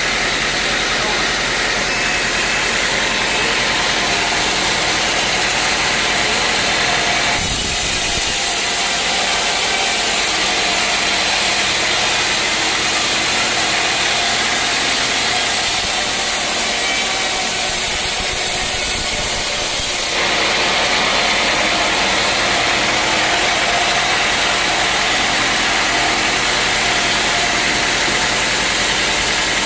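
Sawmill running and sawing through a teak log: a steady machine noise that turns brighter and hissier from about seven to twenty seconds in.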